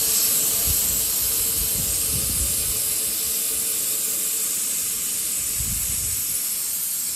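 Compressed air hissing steadily out of an air hose line as it is drained with the compressor's outlet valve shut; the hiss eases slowly as the line pressure drops.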